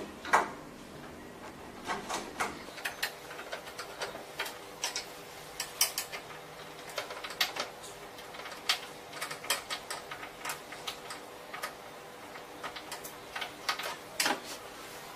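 Irregular light clicks and knocks of hard machine parts being handled and fitted during assembly, with a louder knock about half a second in and another near the end, over a faint steady hum.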